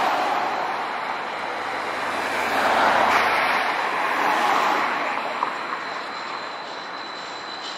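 Road traffic passing close by: tyre and engine noise of cars swelling as they go past at the start and again around three seconds in, then easing. A faint steady high whine comes in during the second half.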